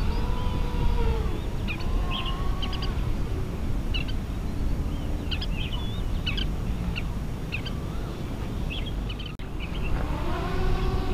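Small quadcopter drone (Hubsan Zino Mini Pro) hovering, its propellers giving a faint hum that wavers in pitch and rises near the end. Scattered bird chirps and a steady low rumble sit alongside it.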